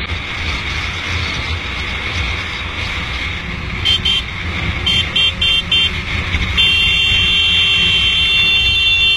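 Steady wind and road rush with engine rumble from a moving motorcycle, then a high-pitched horn: one short honk about four seconds in, four quick honks a second later, then a long honk held for about three seconds, the loudest sound in the clip.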